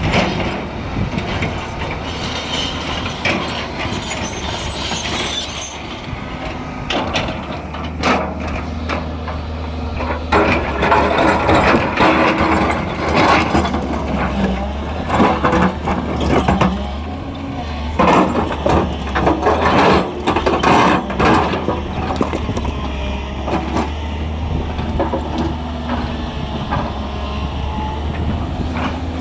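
Excavator's diesel engine running, with its bucket repeatedly knocking and scraping against stones. The steady engine hum comes in about eight seconds in, under the irregular clanks.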